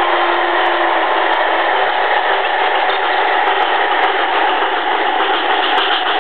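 HO-scale metal model locomotives, an MTH GS-4 steam engine and a Märklin Alco PA-1 diesel, running past close by on the track: a loud, steady whirring hiss of motors and wheels, with a faint hum that fades about a second in.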